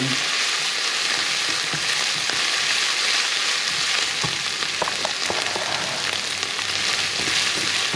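Minced meat and onions sizzling steadily in a hot frying pan while a wooden spatula stirs and scrapes through them, with a few light scrapes a little after the middle.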